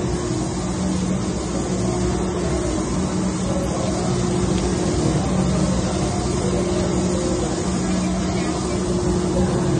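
Steady mechanical drone with a rushing, air-like noise, carrying a low hum whose pitch holds steady and swells and eases slightly every second or two.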